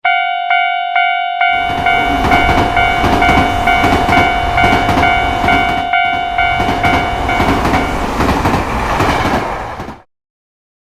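Japanese railroad-crossing alarm ringing its repeating electronic tone about twice a second. About a second and a half in, a train joins it, passing with rushing noise and clattering wheels. The bell stops near the end, and the train sound cuts off suddenly about a second before the end.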